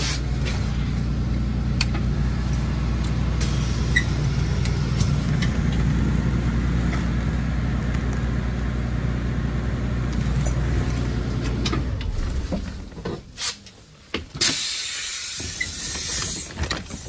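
School bus engine idling steadily, then shut off about twelve seconds in. A few clicks follow, then a hiss near the end.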